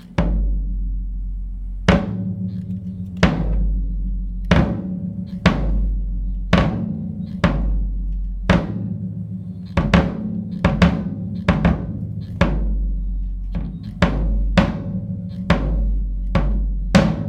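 Drum kit played in a slow groove built on a 16-by-14-inch floor tom converted to a bass drum, with a clear Remo Emperor batter head. It is struck open, the beater bouncing off the head, so each kick rings on in a long, deep boom. Snare hits fall between the kicks.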